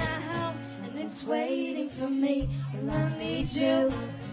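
Background music: a song with a woman singing over guitar accompaniment.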